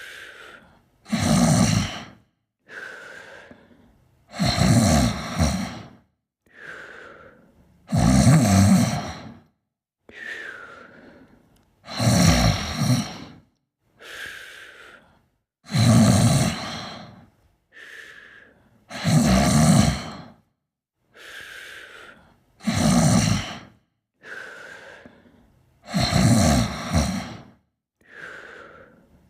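Steady snoring in sleep: a loud, rough snore about every three and a half seconds, eight in all, each followed by a quieter breath with a faint whistle.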